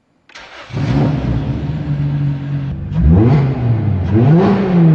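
Car engine revving: it runs steadily for about two seconds, then revs up and falls back in pitch two or three times.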